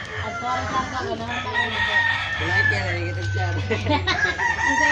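Roosters crowing, one long crow after another.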